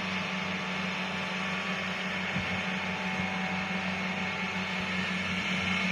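Rice harvesting machine's engine running steadily: a constant hum under a wash of mechanical noise.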